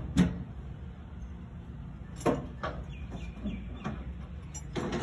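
Scattered short knocks, about five of them, over a steady low background; the loudest comes right at the end.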